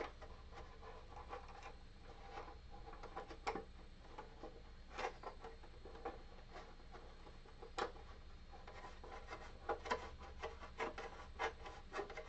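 Hard plastic and metal clicking and scraping as a CO2 cylinder is pushed and turned inside a soda maker's black plastic carbonator housing. The clicks come at irregular intervals and crowd together in the second half.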